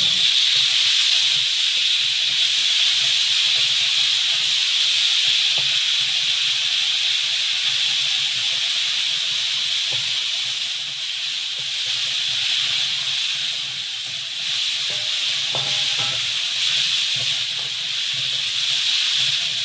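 Hot oil sizzling with a steady loud hiss as chopped onions and spices fry in a steel wok, stirred with a spatula. The sizzle starts suddenly and stays steady.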